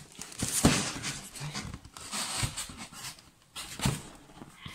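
Handling of a plastic egg incubator's lid as it is opened: scraping, rustling noise and knocks, with two sharper knocks, one under a second in and one near the end.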